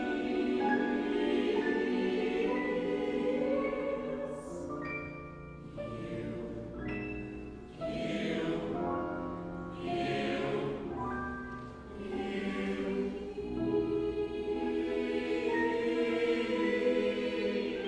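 Mixed choir singing held chords in several parts, with a few short hissing consonants sung together in the middle.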